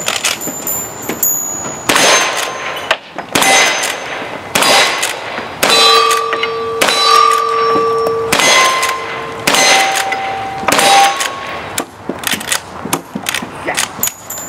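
A rifle fired about ten times, roughly a second apart, with most shots followed by the ringing clang of a struck steel target. The ring's pitch changes from hit to hit as different plates are struck.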